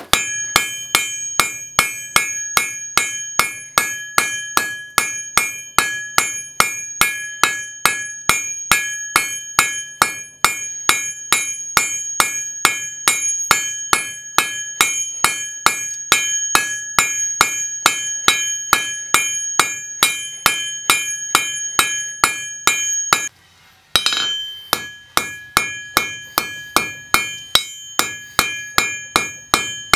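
Hand hammer striking red-hot rebar on a steel anvil in a rapid, even rhythm, each blow ringing out from the anvil. The hammering pauses briefly near the end, then carries on.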